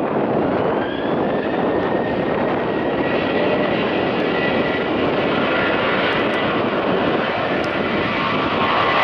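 Boeing 737-800's CFM56-7B turbofan engines running at takeoff thrust during the takeoff roll: a loud, steady jet roar with a high fan whine that rises over the first couple of seconds and then holds steady.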